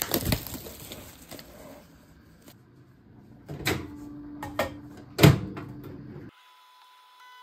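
Handling of a plastic food container, then a microwave oven door opening and knocks as the food goes in, with the door shutting in one loud clack about five seconds in. A faint steady hum starts near the end.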